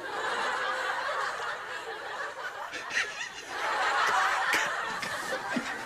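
Audience laughing, a dense crowd laugh that swells up again about halfway through and then eases off.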